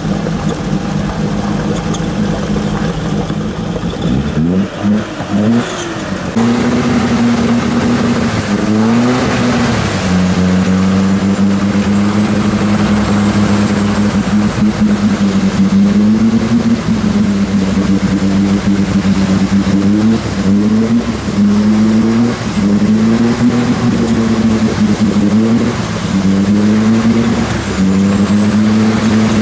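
Off-road 4x4's engine under load in deep swamp mud, revving up and down again and again while the wheels churn through mud and water.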